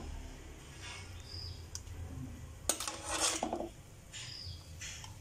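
A metal spatula scraping and knocking against a steel wok of stir-fried clams while sauce is ladled out, with a few short clinks and a brief scrape about three seconds in, over a low steady hum.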